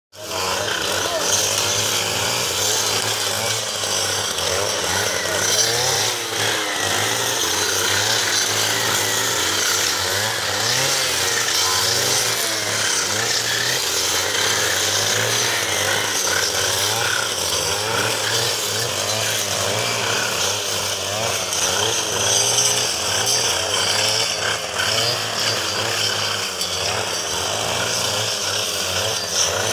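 Backpack brush cutter's small engine running continuously under load, its pitch wavering up and down as the cutting head works through dry weeds and brambles.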